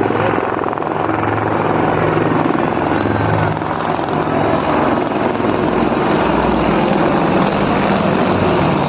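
Military aircraft flying low overhead in a parade flypast, a loud, steady engine and rotor noise that holds throughout.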